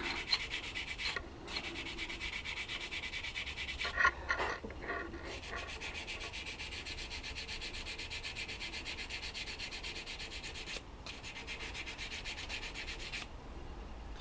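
Fast, even rubbing or scraping strokes, several a second, with a few brief pauses and a couple of light knocks about four seconds in.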